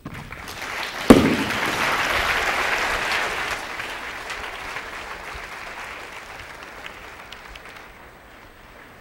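Audience applauding, swelling over the first couple of seconds and then slowly dying away. A single sharp knock sounds about a second in.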